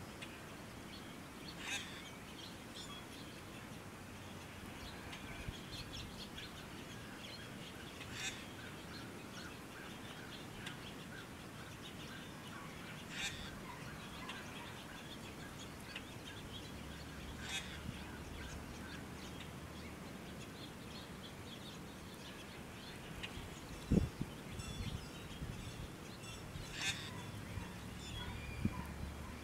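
Wild birds calling and chirping over a steady outdoor rush, with a sharper call every few seconds. There is one low thump about 24 seconds in.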